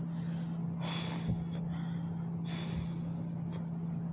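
A person breathing heavily through the nose and mouth, two breaths about a second and a half apart, while holding back a burp with an upset stomach from chugging soda. A steady low hum runs underneath, with a faint thump about a second in.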